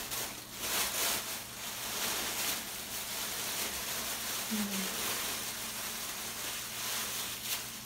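Thin plastic shower cap crinkling and rustling as it is pulled down over the head and tied, with a brief hum from a voice about halfway through.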